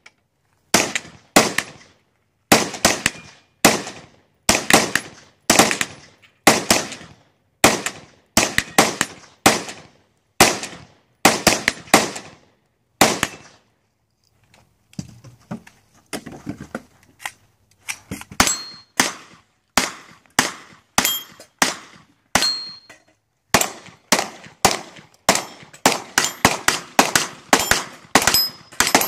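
Repeated gunshots from rifles and pistols fired in a 3-gun match, about two a second at first, a short pause near the middle, then quicker shooting towards the end. A few shots are followed by the ring of hit steel targets.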